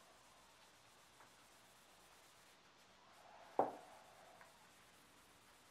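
Faint rubbing of a paper towel wiping tung oil onto a wooden knife handle, with one brief sharp knock a little past halfway.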